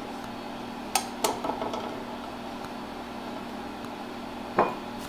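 Silicone spatula scraping and knocking around an empty ceramic-coated frying pan: a few light knocks about a second in and one sharper knock near the end.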